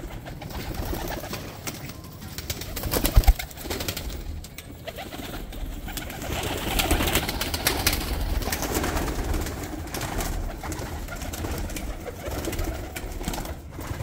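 Domestic pigeons cooing in a loft, with wings flapping and clattering as birds take off and land. A single loud thump about three seconds in.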